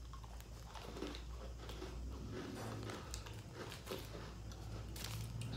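Faint crunching and chewing of a chocolate sandwich cookie, with scattered small crackles over a steady low hum.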